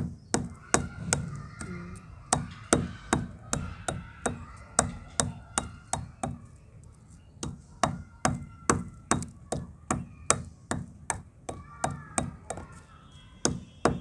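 Metal pestle pounding chunks of dried red clay against a round grinding stone, crushing them toward powder: a steady run of sharp knocks, about two to three a second.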